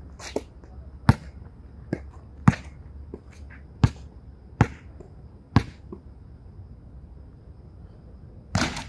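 A basketball bounced on an outdoor court, single sharp bounces about a second apart as the ball is dribbled before a free throw. After a pause, near the end, a longer, noisier hit as the bank shot strikes the backboard and rim.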